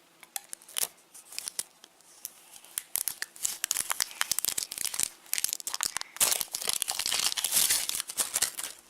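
Foil wrapper of a Kinder Surprise chocolate egg being torn open and crinkled by hand: irregular crackling and tearing, sparse at first and growing denser after a few seconds.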